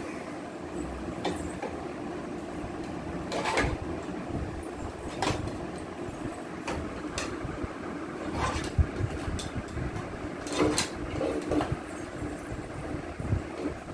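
Hard plastic toy parts clicking and knocking now and then as a handlebar is worked into a plastic ride-on rocking horse, over a steady low hum.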